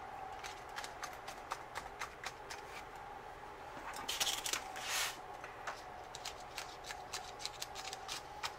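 Paper pages being handled and pressed onto the plastic discs of a discbound planner: a string of small clicks and ticks, with brief paper rustles about four and five seconds in.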